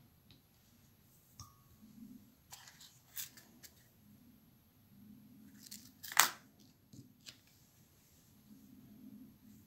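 Faint clicks and rustles of hands handling a hook in a fly-tying vise and a small plastic hook box, with a cluster of light clicks a few seconds in and one sharp click about six seconds in.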